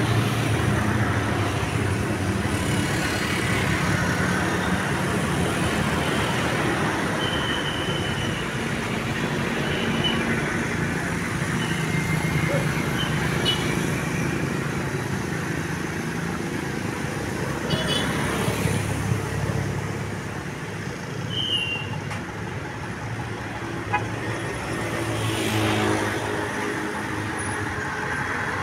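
Road traffic with large buses passing: a steady low engine hum and tyre noise, with a few short high toots.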